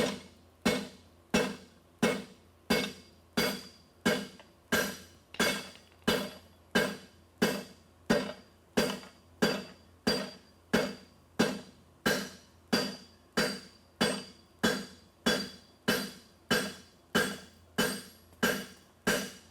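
Steady, evenly paced hammer blows on hot steel over an anvil block, about one and a half a second, each with a short metallic ring: a striker drawing out a 5/8-inch square steel bar into a horseshoe.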